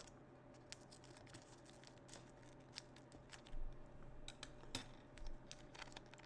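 Faint crinkling, rustling and small clicks of a plastic trading-card pack wrapper being handled and opened, busier and a little louder about halfway through.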